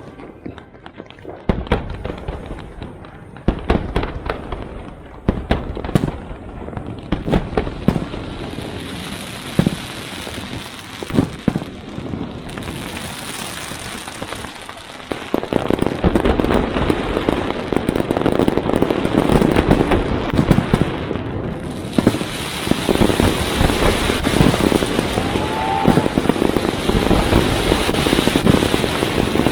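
Fireworks going off: separate sharp bangs at first, then from about halfway a dense, louder barrage of crackling and bangs.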